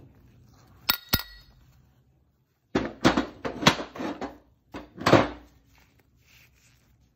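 Two sharp metallic clinks with a short ring, then a run of knocks, clatter and scraping as metal clutch parts, the sheave and the roller spider, are handled and set down on a metal workbench.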